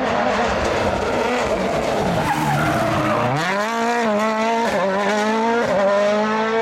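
Rally car at full effort: tyre skid noise over the engine at first, then the engine note drops low about two seconds in and climbs hard as the car accelerates away. Short breaks in the note near the middle and toward the end are gear changes.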